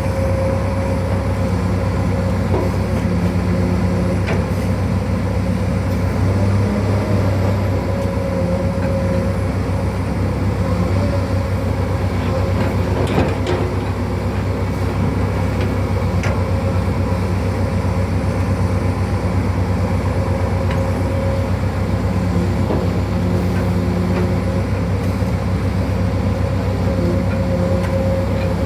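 Excavator's diesel engine running steadily, a constant low drone with little change in pitch.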